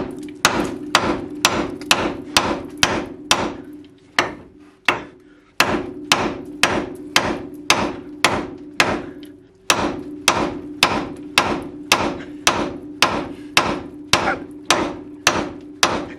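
Hammer blows on the steel front suspension of a truck, about two a second, each strike ringing metallically. There are two short pauses, one about four seconds in and one near the ten-second mark. The part being struck is not giving: it is not going down at all.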